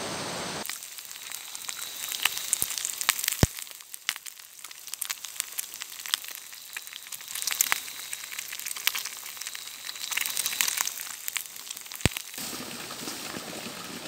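Corn and egg frying in a small pan over a campfire: a steady sizzle with sharp crackles and pops, two of them loud. Near the end it gives way to a steady rush of water pouring from a bamboo pipe spout.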